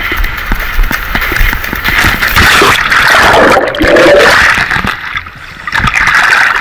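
Sea water splashing around a person wading through the shallows, then plunging in: about two and a half seconds in it turns to bubbling and gurgling heard from under the water, with splashing again as the microphone breaks the surface near the end.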